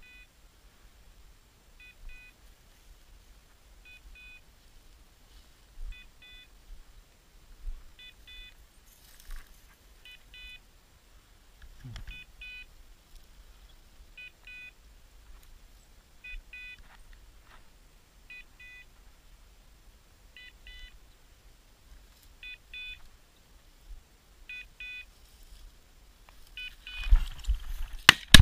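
Hunting dog's beeper collar sounding a short double beep about every two seconds, the signal that the setter is standing still on point. Near the end, rustling through dry grass and then a single shotgun shot.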